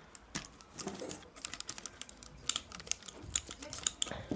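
Small plastic parts of a Lego Bionicle Antroz figure clicking and clacking as it is picked up and handled, a run of light irregular clicks.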